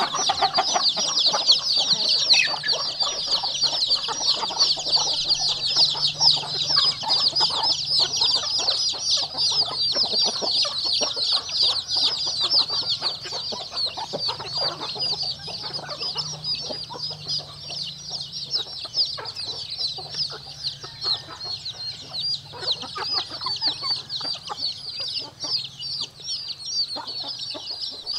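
Many baby chicks peeping at once: a dense, continuous chorus of quick, high chirps, a little louder in the first half.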